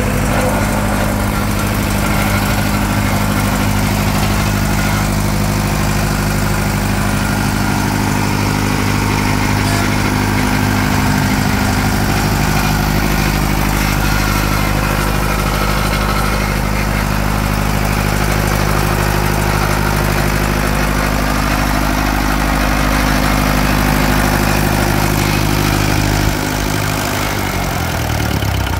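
Freshly overhauled Tata 709 four-cylinder diesel engine of a 40 kVA generator set running steadily at a constant speed. Near the end it is shut off: its note falls in pitch and dies away as the engine slows to a stop.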